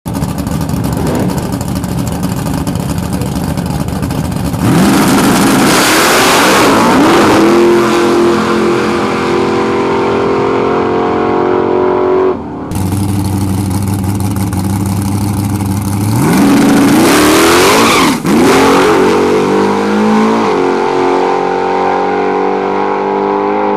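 Drag-race car engines at wide open throttle: an engine running at the start line, then a loud rising rev about five seconds in as the car launches and pulls down the strip, and a second launch with the same rising rev about sixteen seconds in.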